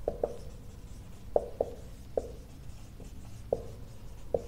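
Marker pen writing on a whiteboard: an uneven series of about seven short squeaky strokes as the letters are drawn.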